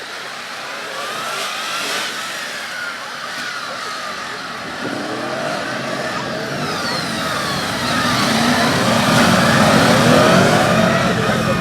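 Several police motorcycles riding a formation drill, their engines rising and falling in pitch as the riders throttle on and off through the manoeuvres, growing louder about two-thirds of the way through.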